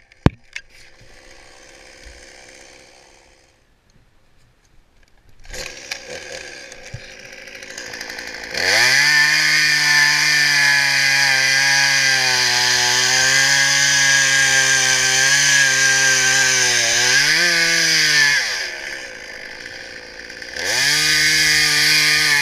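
Chainsaw engine run at full throttle for about ten seconds, its pitch wavering as it works. Near the end of that stretch the pitch climbs briefly, then the engine drops back to a low idle. About two seconds later it is revved to full throttle again.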